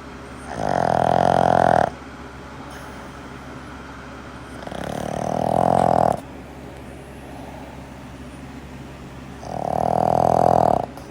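Boston terrier snoring loudly: three long snores about four to five seconds apart, each swelling in loudness and then cutting off abruptly.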